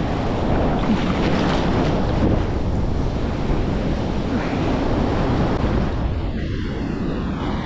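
Ocean surf breaking and washing, with wind buffeting the microphone: a steady deep rushing noise.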